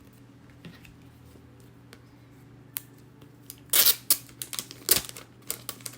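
Photo prints and their packaging being handled: a few light clicks, then loud crinkling and rustling from about four seconds in, running on as smaller crackles.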